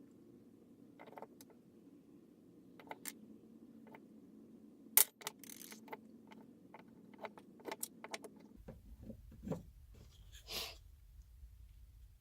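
Faint, irregular metallic clicks and clinks of driver bits and sockets being handled in a drilled wooden holder, with the sharpest click about five seconds in.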